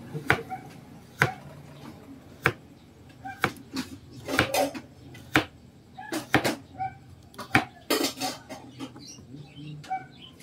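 Kitchen knife chopping vegetables on a plastic cutting board: irregular sharp knocks of the blade striking the board, coming closer together in places.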